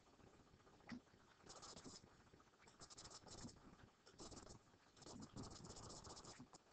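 Faint scratchy rubbing in several short spells, with a single click about a second in: a computer mouse sliding on its pad and clicking.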